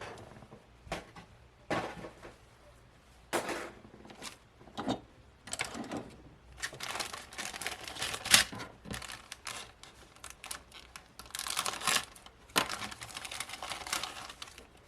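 Plastic model-kit parts being handled: the bagged plastic parts trees rustle and crinkle, with a scatter of sharp plastic clicks and taps.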